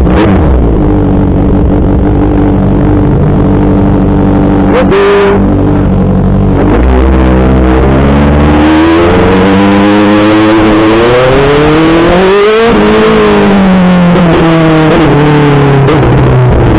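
Kawasaki ZX-6R 636 inline-four engine running loud and steady, with a brief break about five seconds in. It then revs up with the pitch rising and falling several times.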